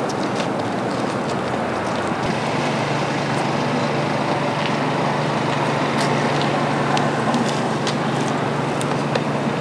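Steady outdoor background noise, a continuous rushing wash, with a low steady engine-like hum that comes in about two seconds in, and a few faint ticks.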